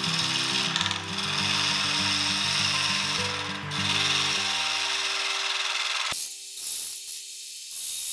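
Gouge cutting a spinning crepe myrtle blank on a wood lathe: a steady hiss of shavings peeling off the wood. About six seconds in the cut turns thin and patchy.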